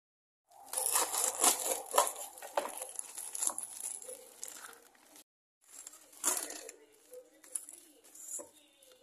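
Plastic bag of fresh miki noodles crinkling and rustling as it is handled, densest in the first half, followed after a brief gap by sparser, quieter handling noises.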